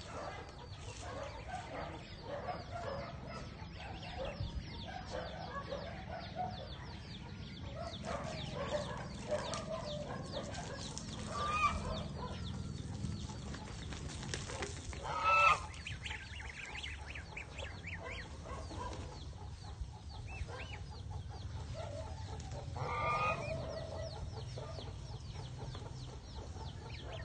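Domestic geese and goslings calling: a steady run of short clucking and peeping calls. Three louder goose honks come about 12, 15 and 23 seconds in.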